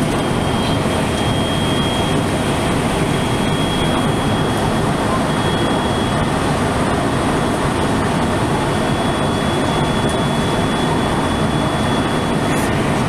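JR West 223 series electric train running steadily at speed, heard from the driving cab: a continuous rumble of wheels and running gear on the rails, with a faint steady high whine.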